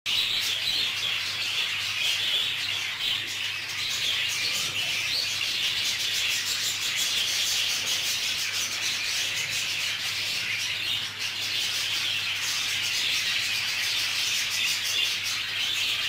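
Budgerigars chattering and chirping continuously, a dense chorus of many birds at once.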